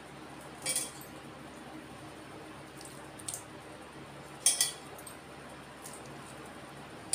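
Raw prawns moved by hand into a stainless steel mixing bowl: three short wet slaps and clinks against the steel, the loudest about four and a half seconds in.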